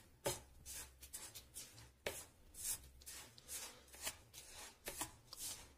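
Wooden spatula stirring and scraping dry roasted semolina and crumbled mawa (khoya) in a ceramic bowl: a run of soft scratchy strokes, about two a second.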